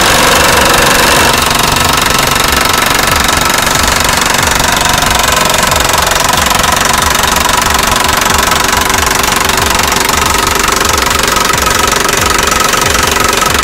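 Electric impact wrench with a socket running on the nuts of a steel beam's bolts, a loud, fast, continuous rattling hammer.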